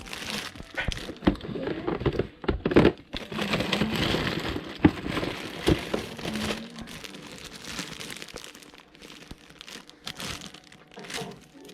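Plastic packaging crinkling and rustling as action figures are handled, with scattered sharp clicks and knocks of plastic pieces, busiest in the first half and dying down later.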